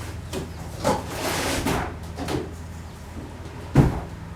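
Parts being handled and fitted during assembly: a knock about a second in, then a short scraping slide, and a louder knock near the end, over a steady low hum.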